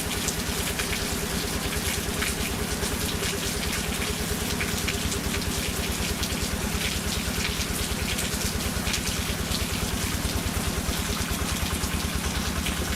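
Single-cylinder diesel engine of a Quick G3000 Zeva two-wheel hand tractor running steadily under working load, its firing beating evenly, with rain pattering and hissing over it.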